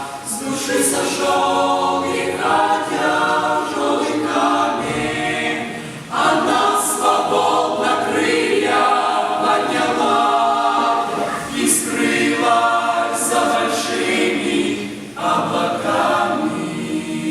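A youth choir singing a Christian hymn a cappella in several voices, in long sung phrases with brief breaths between them about six and fifteen seconds in.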